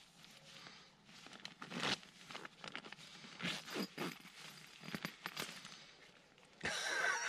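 Irregular rustling and crinkling with sharp clicks, as camping gear is handled. Near the end, geese start honking.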